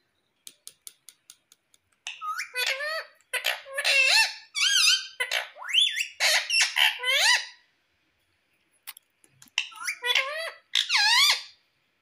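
Rose-ringed parakeet (Indian ringneck) chattering in strings of high-pitched, squeaky calls that glide quickly up and down in pitch, in two bouts with a pause between. A quick run of light clicks comes just before the first bout.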